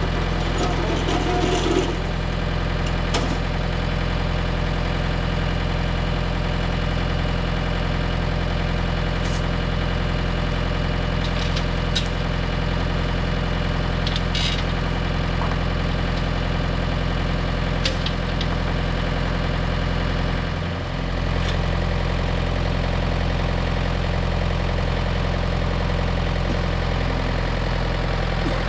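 An engine running steadily at idle, with a few faint clicks and knocks over it. About 21 s in the engine's pitch and level dip briefly, then recover.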